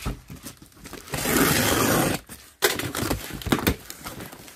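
A taped cardboard shipping box being torn open by hand. About a second in, there is a loud tearing noise of about a second as the packing tape rips from the cardboard, followed by scrapes and several sharp knocks as the flaps are pulled back.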